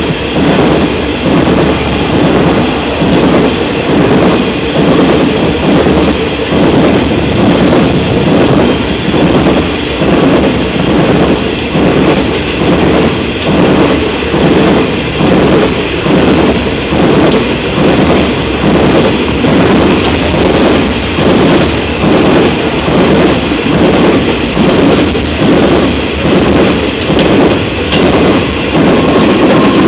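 Loaded bogie coal wagons of a long freight train rolling past close by: a loud, steady rumble of steel wheels on rail, with an even, repeating clickety-clack as the wheelsets pass over the rail joints.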